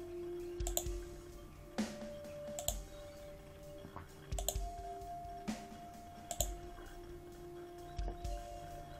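Computer mouse clicks, roughly one a second, over quiet background music with long held notes.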